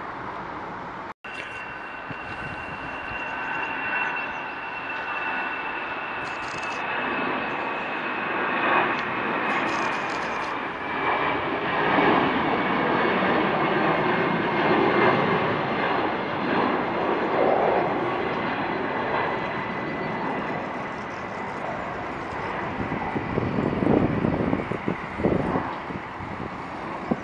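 Jet airliner engines at takeoff power: a high whine that falls slowly in pitch over a steady rumble and hiss. There is a brief dropout about a second in.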